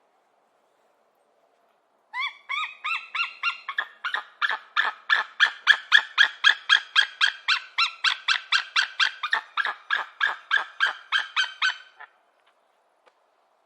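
A bird of prey calling: a long run of rapid, evenly repeated shrill notes, about four to five a second. It starts about two seconds in with a few upward-sweeping notes and stops shortly before the end.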